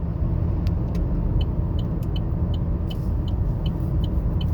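Steady low rumble of a car driving, heard from inside the cabin with the windows up. From about a second and a half in, a faint high ticking repeats about four times a second.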